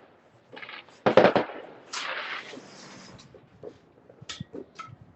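Aerial fireworks bursting: a rapid cluster of loud bangs about a second in, a short stretch of crackling, then a few scattered single pops.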